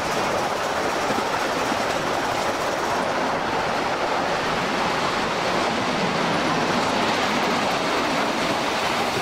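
Ride-on miniature live-steam train running along its track, heard from a riding car: a steady rattle and rumble of small wheels on the rails.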